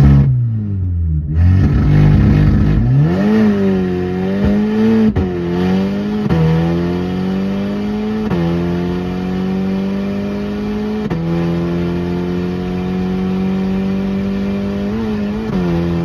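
Audi 8Y S3's turbocharged 2.0-litre four-cylinder, muffler removed, heard from inside the cabin under a full-throttle launch from about 3,000 rpm. The engine note climbs and drops suddenly at each of four upshifts, which come further apart as the run goes on, and it falls away as the throttle lifts near the end.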